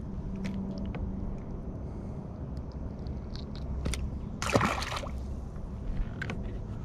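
A small bluegill tossed back into the lake, landing with a single splash about four and a half seconds in. Light clicks and rustles of hands working the hook and line come before it.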